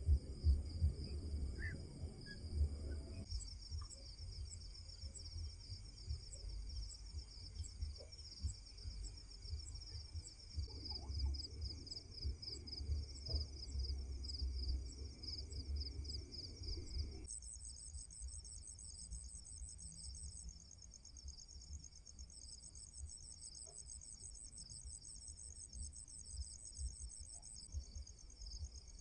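A chorus of insects trilling continuously in several overlapping high-pitched layers, over a low rumble with soft knocks. The mix changes abruptly about three seconds in and again a little past halfway.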